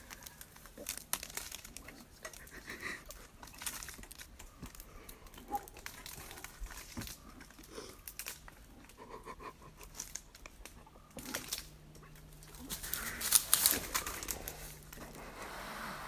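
A bear cub climbing a tree and pawing at a tree stand: claws scraping on bark and catching on camo fabric, a run of scattered scratches, clicks and crinkling rustles, loudest about thirteen seconds in.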